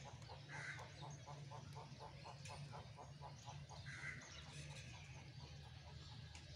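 Faint animal calls: a quick, even run of short calls, about six a second, that stops a little past halfway, and two short higher chirps, over a low steady hum.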